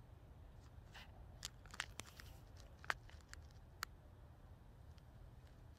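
Near silence: a low steady hum with a few faint, scattered clicks.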